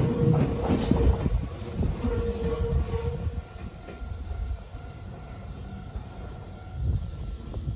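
Nankai 7100-series electric train pulling away along the track, its running noise fading as it recedes. For the first three seconds or so a steady whining tone comes and goes over the rumble, then the sound dies down to a low, distant rumble.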